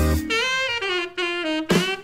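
Jazz background music led by a saxophone melody that slides up and down in pitch.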